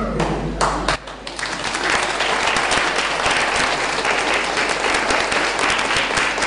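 Crowd applauding, starting about a second in after a brief lull and then holding steady.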